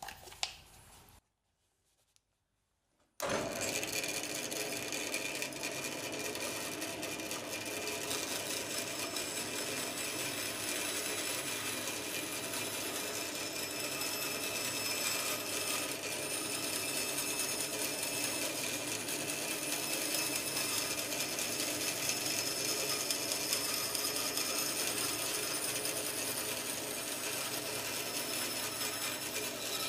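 Bandsaw running steadily while it cuts curves in a timber board. The sound comes in abruptly about three seconds in, after a moment of near silence.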